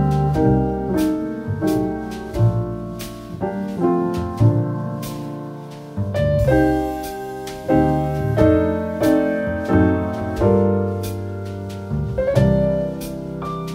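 Background music led by piano, with a light tick keeping time.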